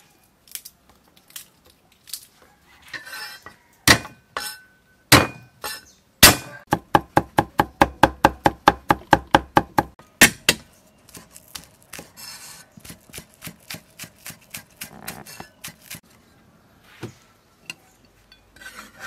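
Cleaver chopping garlic and green onions on a thick wooden chopping block: a few heavy single chops, then a fast even run of chops at about seven a second, then lighter, quieter cuts.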